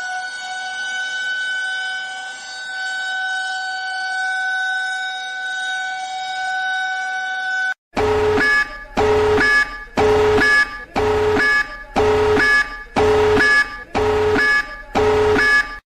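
A siren tone, just settled after rising in pitch, holds steady for about eight seconds and cuts off. Then a harsh pulsing alarm horn blasts about once a second, eight times, and stops abruptly.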